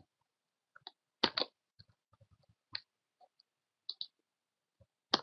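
Scattered clicks of a computer mouse and keyboard keys, a dozen or so irregular taps, some in quick pairs.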